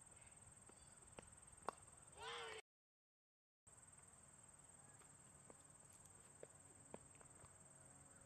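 Near silence: faint outdoor ambience under a steady high whine from the recording, with one sharp knock about a second and a half in, a brief shout just after it, and a few faint ticks later. The sound cuts out to dead silence for about a second, twice.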